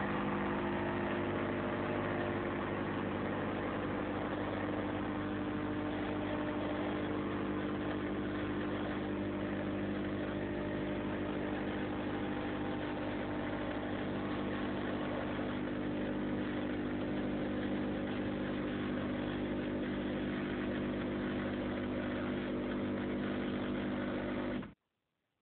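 DeLonghi Magnifica bean-to-cup coffee machine's pump humming steadily as it runs its one-touch cappuccino cycle, then stopping abruptly near the end.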